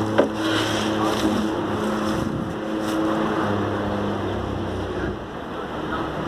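Crane truck's engine running with a steady hum that fades out about halfway through, with wind buffeting the microphone throughout.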